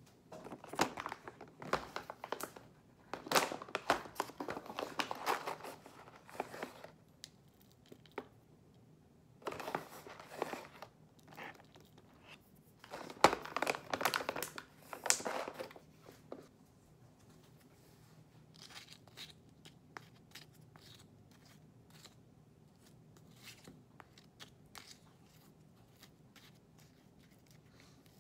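Plastic snack bags crinkling and rustling as they are handled, opened and poured out, in two bouts of several seconds each. In the second half only scattered light clicks and taps, with a spoon stirring in a plastic yogurt tub near the end.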